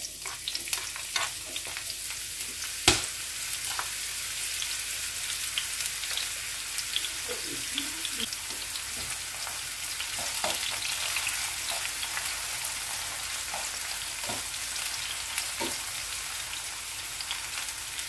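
Sliced brown mushrooms sizzling and crackling in hot olive oil in a nonstick frying pan, with one sharp knock about three seconds in.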